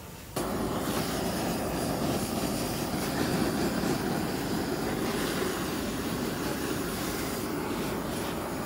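Handheld butane blowtorches burning with a steady rushing hiss as they brown cheese slices on a tray of burgers. The sound starts suddenly about half a second in.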